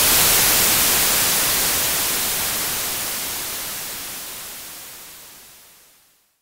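Radio static hiss, loud at first, then fading steadily away until it dies out near the end: the broadcast signal cutting out.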